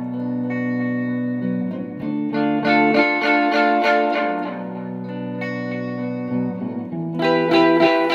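Electric guitar playing held chords and picked notes that ring over one another, with a run of quicker picked notes starting about seven seconds in.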